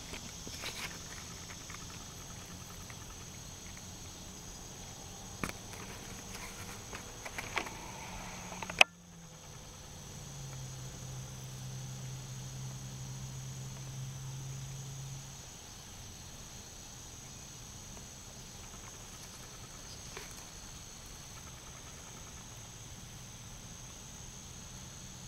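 Steady high-pitched chorus of insects, with a low hum beneath it. A few faint knocks come between about five and eight seconds in, then one sharp click near nine seconds.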